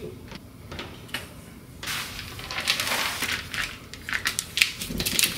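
Crinkling and rustling of plastic or paper being handled, starting about two seconds in, with many small clicks and a low knock near the end.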